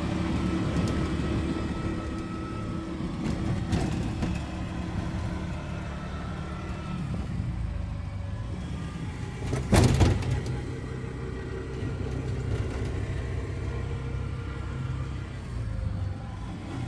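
Small motorcycle engine of a mototaxi (motorised tricycle taxi) running steadily while under way, with one loud knock or jolt about ten seconds in.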